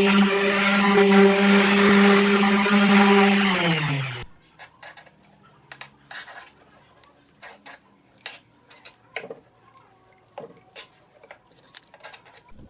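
An electric power tool's motor running steadily, then switched off about four seconds in, its pitch falling as it spins down and stops. After that come scattered light knocks and taps.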